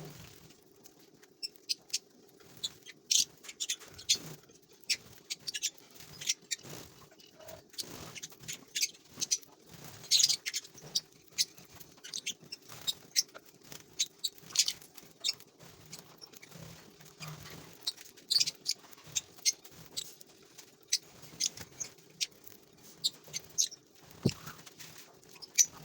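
A colony of lovebirds chattering: many short, sharp, high-pitched chirps and squeaks at irregular intervals.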